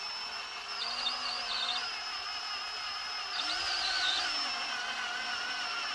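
Power drill running steadily as its twist bit bores a hole through a Kydex holster shell. The motor's whine dips and wavers in pitch about a second in and again around three and a half seconds, as the bit bites into the plastic.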